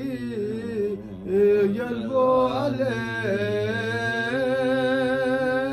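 A man's voice chanting a Balti devotional qasida unaccompanied, in long held notes that waver in pitch, with a short breath about a second in.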